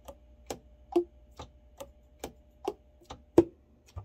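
Yamaha YTS-380 tenor saxophone keys being pressed shut one after another in a leak test, each pad closing on its tone hole with a hollow 'tong' pop, about two or three a second. The clean, even pops are a 'good sound': the freshly set pads are sealing well.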